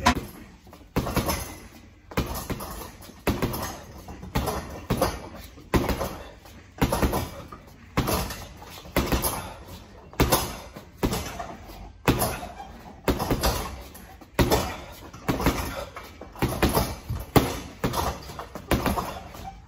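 Boxing gloves punching a Metal Boxe heavy bag: a steady run of sharp thuds, about three every two seconds, each fading quickly.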